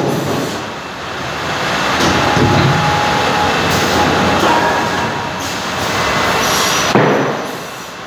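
Cursal TROA Ø550 roller-fed optimizing cross-cut saw running: a steady rumble from the feed rollers and conveyors, broken by several sharp knocks as boards are fed, cut and pushed on.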